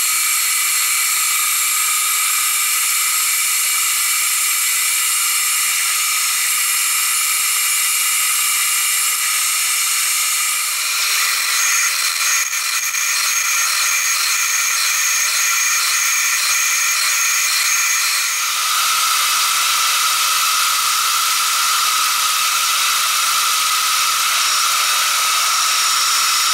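Vertical milling machine running, its end mill cutting a pocket in a metal plate: a steady high-pitched whine over a hiss. The sound changes abruptly twice, about 11 and 18 seconds in. In between, a high pulse repeats about twice a second.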